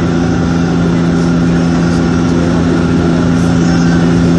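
Airliner cabin noise heard from a window seat: the engines' steady drone with a strong low hum over a wide rush of air, as the plane descends to land.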